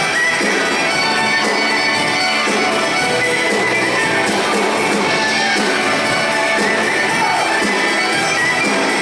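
Live band playing an instrumental passage with a steady beat, no singing.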